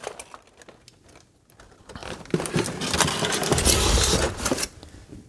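Aluminium foil crinkling and a disposable aluminium pan rustling as a foil-wrapped brisket is handled and settled into a cooler. The crinkling starts about two seconds in and dies away near the end, after a few faint clicks at the start.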